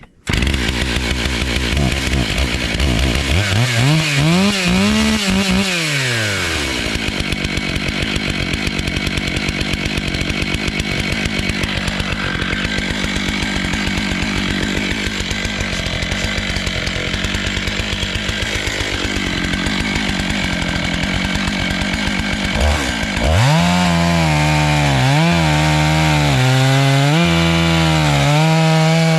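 Stihl MS 661 two-stroke chainsaw on a small chainsaw mill, revving once and then running at steady full throttle as it cuts through a black walnut log for about fifteen seconds. Near the end it drops to a lower, uneven throttle, the revs rising and falling.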